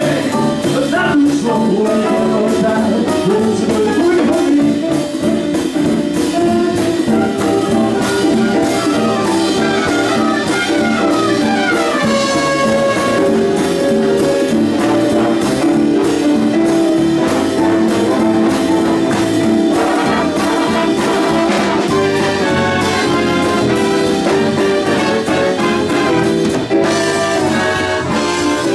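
Live band playing an upbeat jazz number with horns over a steady beat, with a falling run of notes about ten seconds in.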